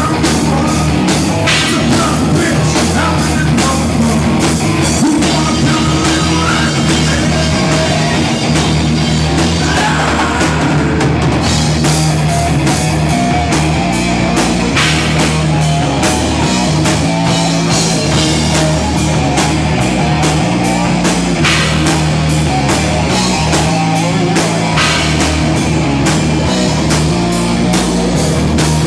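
Live heavy rock band playing loud, with a busy drum kit hitting many fast strokes over steady low bass and guitar.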